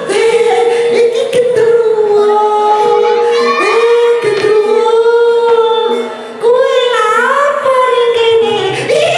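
A high female voice sings long held notes that slide and bend in pitch, over gamelan accompaniment with a few drum strokes. The voice breaks off briefly about six seconds in, then picks up again with a sliding phrase.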